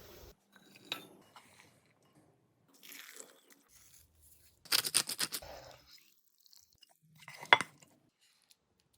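Food-preparation sounds: scattered crunchy scrapes and clicks, with a quick run of sharp clicks about five seconds in and a single sharp knock about seven and a half seconds in.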